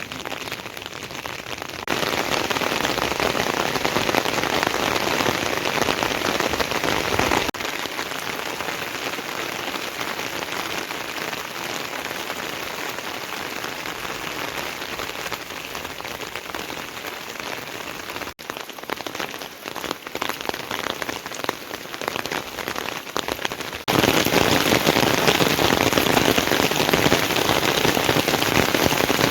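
Heavy rain pouring down in a steady hiss. Its loudness jumps or drops abruptly several times and is loudest near the end.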